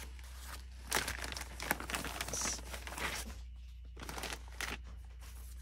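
Paper scraps rustling and crinkling as a pile is shuffled through by hand, busiest in the first three seconds, then fainter with a few light ticks.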